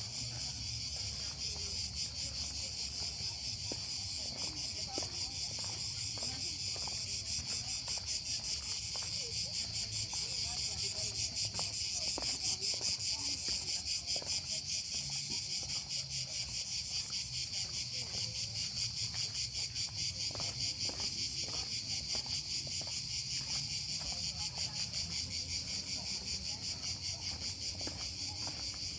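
A steady chorus of cicadas buzzing in the pine woods: a dense, high-pitched shrill with a fast pulse, never letting up.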